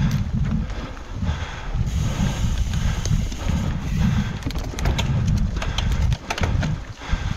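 Full-suspension mountain bike riding down a dirt trail: a heavy, uneven rumble of tyres and wind on the microphone, with the clatter of chain and frame over roots and rough ground. A run of sharp rattles comes about four to five seconds in.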